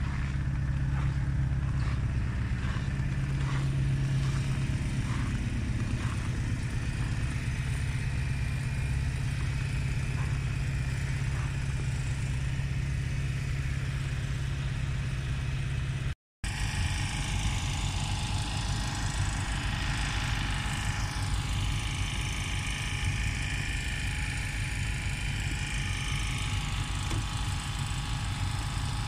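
Engines idling: a steady low hum, broken by a brief dropout about halfway through.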